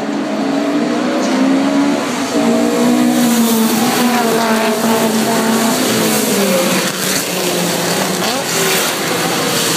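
A pack of classic racing cars passing at race pace just after the start: several engines revving at once, their pitches rising and falling over one another, growing louder about two seconds in. Tyres hiss through water on the wet track.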